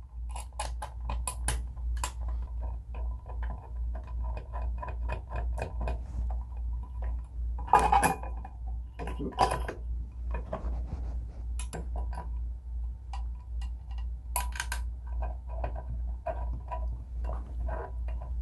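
Small metal parts clicking and clinking as a brass ceiling light canopy and its decorator screws are handled against the metal mounting plate, with two louder scrapes about eight and nine and a half seconds in. A steady low hum runs underneath.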